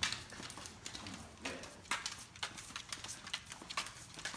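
Great Dane's toenails clicking on a hard floor as she walks, an uneven run of sharp clicks a few times a second.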